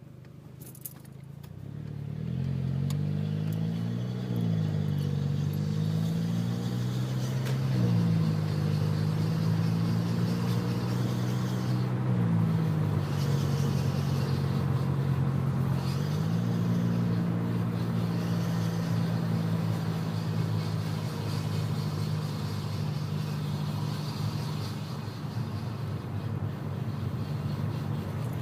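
Car being driven, its engine note shifting up and down in steps several times over a steady haze of road noise, building up over the first few seconds. It is recorded for a grinding noise from a wheel, which the owner takes for either a rock stuck between the brake rotor and heat shield or a failing wheel bearing.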